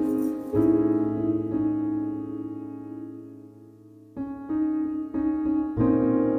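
Background music: piano chords struck and left ringing as they slowly fade, then new chords struck several times from about four seconds in.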